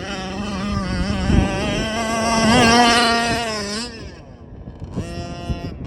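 HPI Baja 5T's Zenoah two-stroke petrol engine running at high revs, its pitch wavering as the throttle is worked. It is loudest around the middle, drops away about four seconds in, then revs up again near the end.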